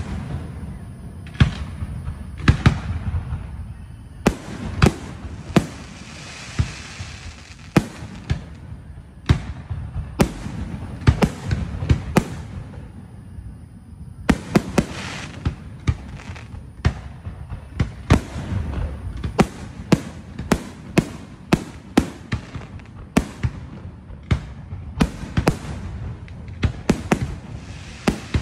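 Aerial firework shells bursting overhead one after another, sharp bangs over a low rumble, with a crackle after some bursts. The bangs come faster in the second half.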